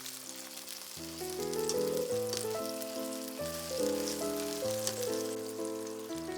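Food sizzling and crackling in hot oil in a frying pan, under instrumental background music with a melody of held notes.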